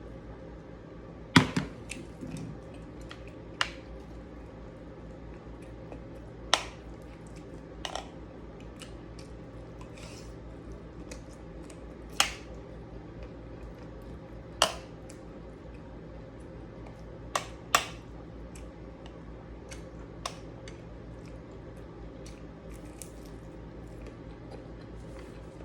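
Spoon and fork clinking against a plate during a meal: about ten sharp, separate clicks, the loudest about a second and a half in, over a steady low hum.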